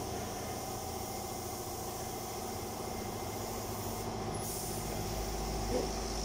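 Steady mechanical drone with an even stack of low tones, from an engine or motor running. It does not change except for a low rumble that grows in the last second or two.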